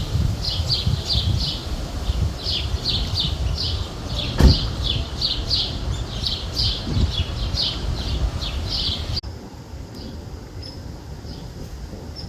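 A bird chirping over and over, short high calls about three a second, over a low rumble of wind. A single sharp knock sounds about four and a half seconds in. The sound cuts off abruptly near the end and gives way to a quieter background with a faint high tone.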